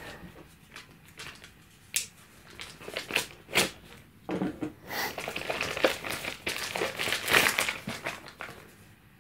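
White plastic mailer bag crinkling and rustling as it is opened by hand and a small cardboard box is pulled out, with scattered clicks and light tearing, busiest in the second half.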